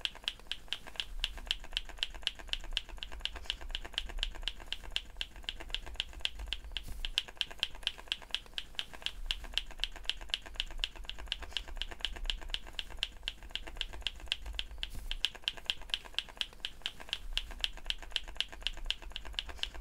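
Rapid, even ticking: sharp clicks several times a second, over a low hum.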